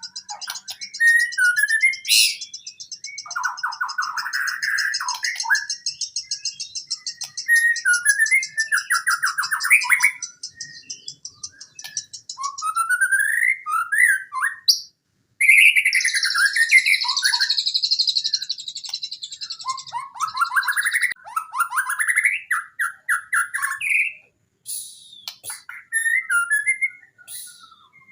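White-rumped shama (murai batu) singing a fast, continuous, varied song of whistled phrases and trills, mixed with long buzzy rattles. The song is packed with mimicked material from other birds (isian). It breaks off briefly about halfway through.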